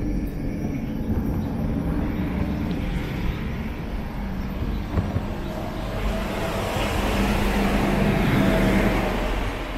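A motor vehicle passing close by: a steady traffic rush that builds to its loudest near the end, then begins to fade.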